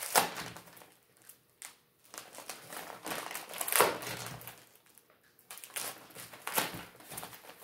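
Plastic packaging crinkling in irregular rustles as a lathe digital readout's linear scale, still in its plastic bag, is handled. The loudest rustles come right at the start, a little before the middle, and near the end, with quieter gaps between.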